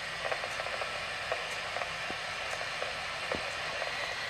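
NOAA weather radio receiver putting out steady static hiss with scattered faint crackles: the station has been knocked off the air, so no broadcast is coming through.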